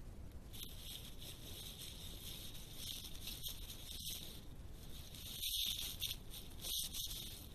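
Badger brushing its fur against the trail camera: scratchy rustling in short bouts over the camera's steady hiss, loudest a little past halfway and again near the end.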